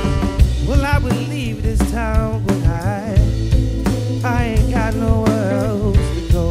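Live blues-rock band: a male singer sings lines with a wide, wavering vibrato over electric guitar, electric bass and a drum kit.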